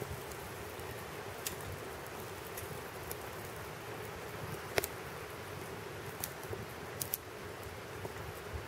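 Wood gas stove burning wood: a steady rush of flame with sharp crackles and pops now and then.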